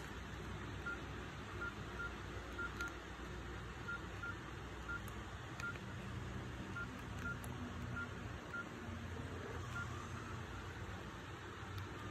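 Nokia 6680 keypad tones: a series of short, same-pitched beeps at irregular intervals as the phone's navigation key and buttons are pressed, with faint key clicks.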